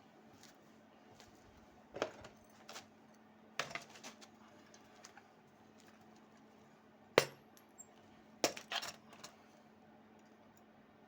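Metal pieces clinking and clanking as they are handled, in a few separate knocks with gaps between them; the loudest knock comes a little past the middle. A faint steady hum runs underneath.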